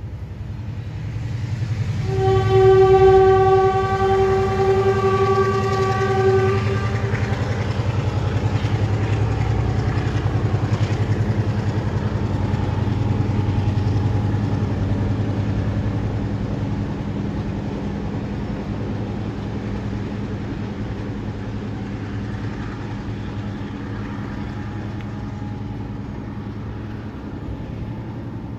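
Diesel train's horn sounding one long blast about two seconds in, over the steady low rumble of the locomotive's engine as the train runs. The rumble slowly fades towards the end.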